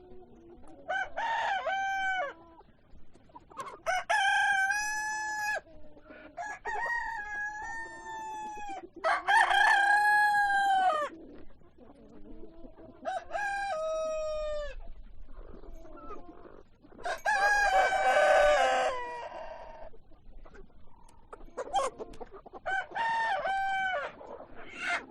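Roosters crowing again and again: about seven long crows of one to two seconds each, with quieter chicken calls between them.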